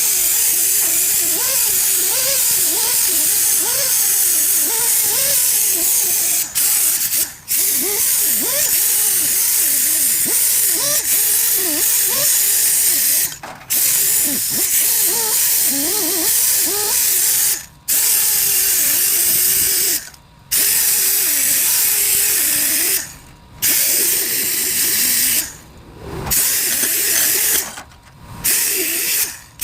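Compressed-air tool hissing loudly in long bursts, with a wavering whir under the hiss, cut off briefly every few seconds and more often near the end.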